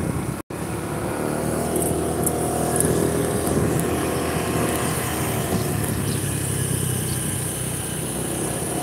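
Motor scooter engine running steadily as it rides along the road. The sound cuts out briefly about half a second in.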